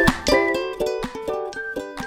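Background music of plucked string notes, several a second, each note starting sharply and fading.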